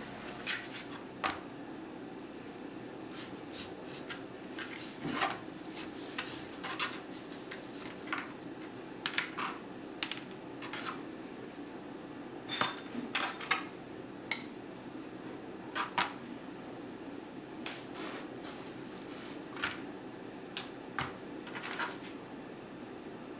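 Kitchen handling sounds: scattered light taps, clicks and knocks of utensils and dishes, one with a brief ringing clink about halfway through, over a steady low hum.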